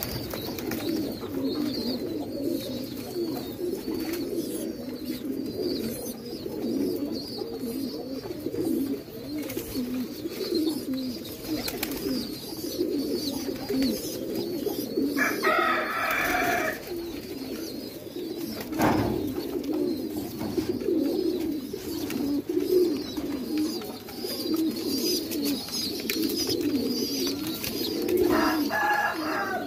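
A flock of domestic fancy pigeons cooing continuously, many overlapping coos forming a steady, wavering murmur. A brief higher-pitched sound cuts in about halfway through and again near the end, and there is a single sharp knock about two-thirds of the way in.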